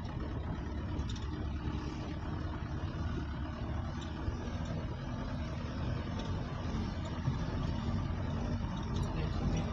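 Jeep engine running steadily with low road rumble, heard from inside the moving vehicle.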